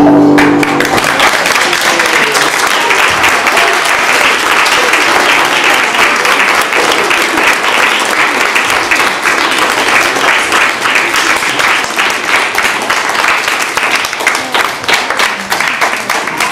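Audience applause: many people clapping, dense at first and thinning out toward the end. In the first second a held note from the end of a song dies away under the clapping.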